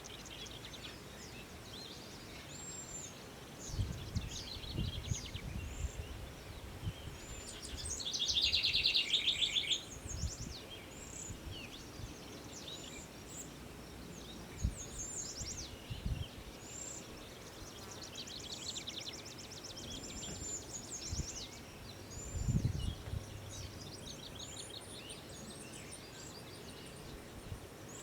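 Several songbirds chirping, whistling and singing in the open, with short calls overlapping and rapid buzzy trills, the loudest about a third of the way in. A few low rumbles of wind or handling noise on the microphone come in between.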